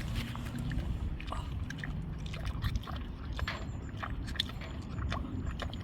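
A steady low rumble with scattered light clicks and taps through it.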